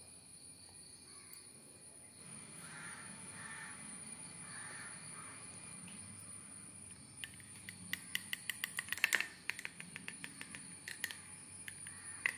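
A steady high, thin insect drone like crickets runs under everything. From about seven seconds in comes a quick run of sharp light clicks, fastest near nine seconds, then a few scattered ones.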